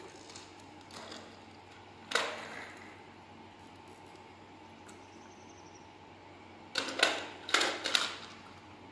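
Hard plastic knocks: a small plastic toy car clattering against the plastic tray of a baby walker, one knock about two seconds in and a quick run of four or five near the end, the loudest of them.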